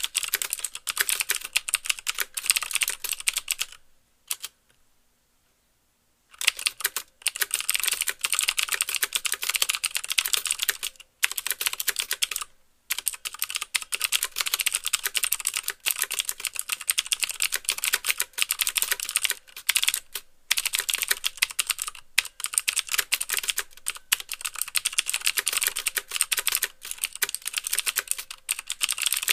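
Fast typing on a mechanical keyboard with Cherry MX Blue switches: rapid clicky keystrokes with the clack of keys bottoming out. Typing stops for about two seconds a few seconds in, then resumes.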